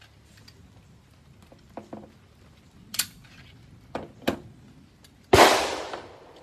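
Light metallic clicks and knocks of a gun being handled, then a single gunshot a little over five seconds in, with a long echoing tail.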